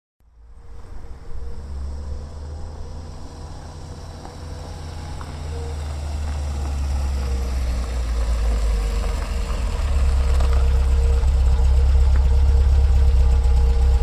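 A vehicle engine running with a deep rumble, growing gradually louder.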